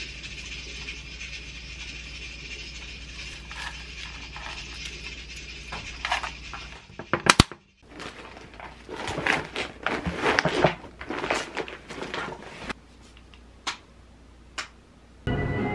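Light shaking of a sesame seed shaker over a steady background hum; then, after a sharp click, irregular rustling of a cloth tote bag and objects being handled on a table, with two single clicks near the end.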